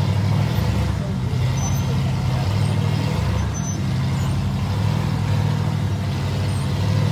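Rock crawler buggy's engine running steadily at low revs under load as it climbs, with a few brief deeper surges of throttle.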